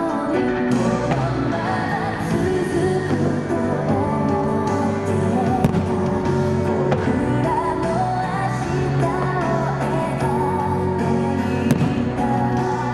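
An anime song with singing plays loudly, with a couple of sharp firework bangs about six and twelve seconds in.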